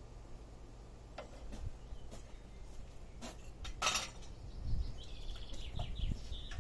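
A few light clinks and knocks of kitchenware being handled, the loudest about four seconds in. A bird chirps faintly near the end.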